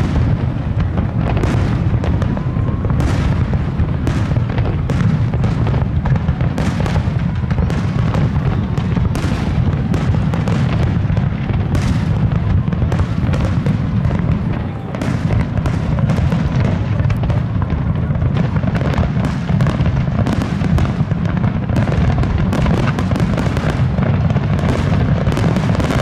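Fireworks display: aerial shells bursting in quick succession, a dense run of overlapping bangs over a continuous low rumble.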